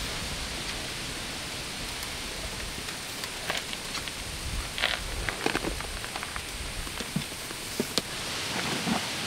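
Steady rain falling, with scattered sharp taps of drops through the middle stretch.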